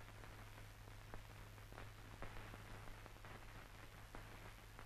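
Near silence: a faint steady hiss and low hum with scattered irregular clicks and crackles, the noise floor of an old film soundtrack.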